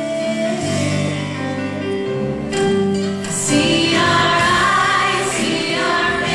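Live music: a group of voices singing a song over instrumental backing, the singing swelling louder about four seconds in.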